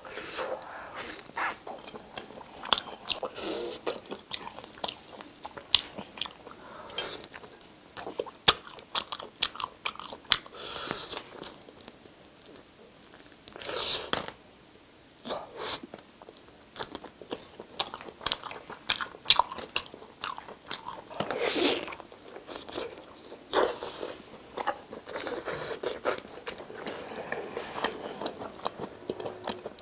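A person eating roast chicken and then pizza, close up: irregular bites and chewing with crunches, pausing briefly about halfway through.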